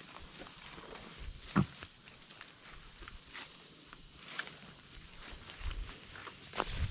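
Steady high-pitched insect drone in the woods, with scattered footsteps and two sharper knocks, one about a second and a half in and one near the end.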